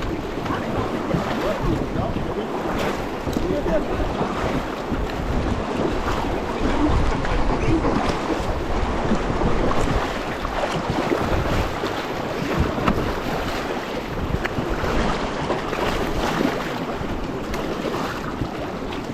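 Whitewater rushing and splashing around an inflatable raft running a rapid, with wind buffeting the microphone as a low rumble.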